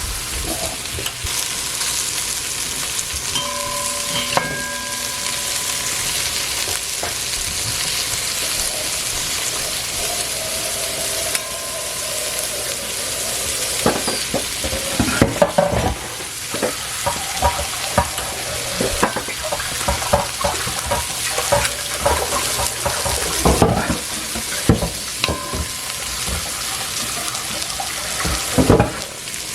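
Sliced okra frying in vegetable oil on low heat, a steady sizzle. From about halfway on, a spoon knocks and scrapes against the pot again and again as the okra is stirred and turned.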